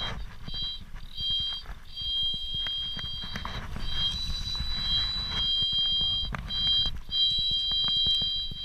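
Click-and-pawl fly reel buzzing in spurts as the spool turns while a salmon is played on the fly rod, over a low rumble and handling knocks.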